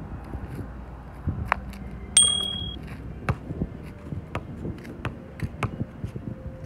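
A basketball bounces several times on a concrete court. About two seconds in it strikes the steel hoop rim with a sharp clang and a brief metallic ring, the loudest sound here.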